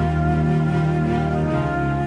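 Background music with slow, sustained notes.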